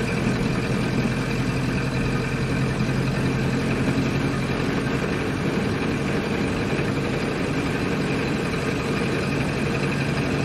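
Old car's engine running at a steady, unchanging pitch while driving.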